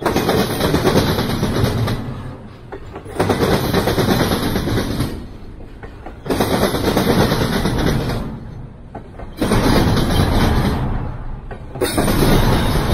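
Double-stack intermodal freight cars rolling past on the rails: a loud, dense rumble and rattle of wheels and car bodies that swells and eases about every three seconds as each car goes by.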